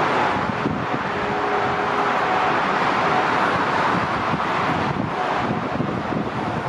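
Jet engines of a Boeing 777-300 at takeoff thrust: a steady, even roar with faint humming tones in it, as the airliner rolls down the runway, rotates and lifts off.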